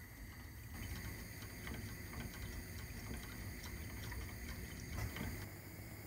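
Silicone whisk stirring a runny chocolate mixture in a granite-coated pot: soft sloshing with many quick small ticks of the whisk against the pot.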